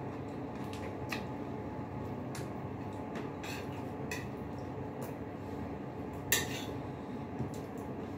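Scattered light clicks and clinks of a spoon and fingers against ceramic plates and bowls while eating, with one sharper clink about six seconds in, over a steady low hum.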